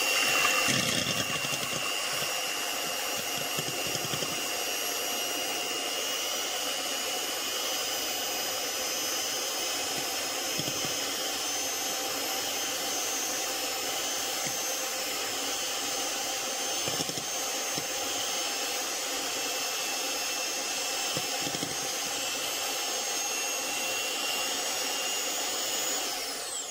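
Electric hand mixer running at a steady speed, its beaters whipping egg whites into a foam in a bowl: a constant motor whine that cuts off near the end.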